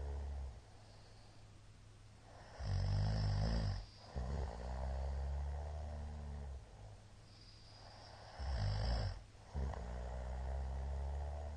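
A middle-aged man snoring loudly in his sleep. The snoring comes in two breath cycles about six seconds apart: each is a loud, low snore of about a second, then after a brief break a longer, quieter snore of about two and a half seconds.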